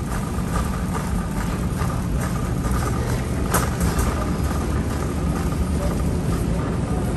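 Steady low rumble of a phone microphone carried by someone walking through a large store, with footstep taps about every half second.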